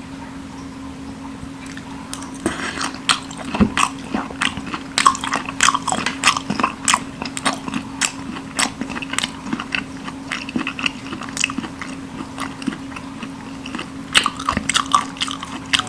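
Close-up chewing of raw black sea bream sashimi: a dense, irregular run of crisp, wet crunching clicks that starts a couple of seconds in.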